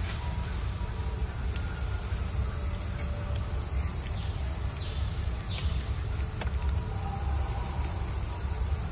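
Steady chorus of insects, a continuous high-pitched drone on two pitches, over a constant low rumble, with a few faint clicks.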